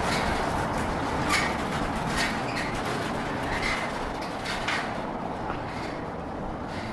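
Street ambience: a steady hum of traffic that slowly gets quieter, with short irregular clicks and knocks scattered through it.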